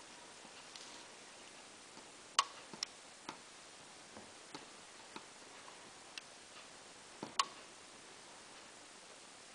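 Faint, irregular small clicks from desoldering a battery wire on an MP4 player's circuit board, the soldering iron tip and the wire-gripping tool ticking against the joint while the solder is heated, over a quiet steady hiss. Two sharper clicks stand out, about two and a half and seven and a half seconds in.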